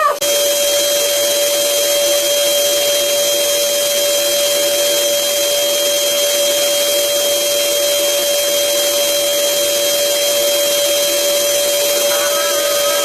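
Electric air blower running steadily, a constant rushing noise with a fixed whine.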